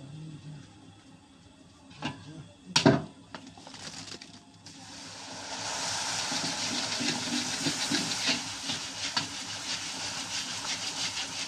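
Hot oil sizzling and crackling as puris deep-fry in a kadhai, swelling up about five seconds in and holding steady. Before it, two sharp knocks.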